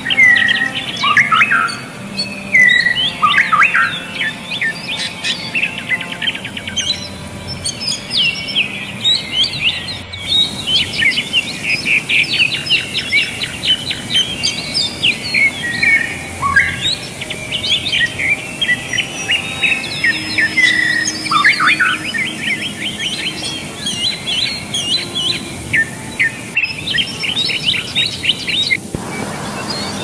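Many birds chirping and singing in quick, overlapping calls over the steady rush of a waterfall and stream. The birdsong stops shortly before the end, leaving only the rushing water.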